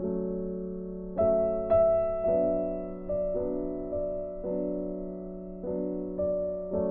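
Background music: a slow piano melody, single notes struck every half second or so and left to ring over a held low note.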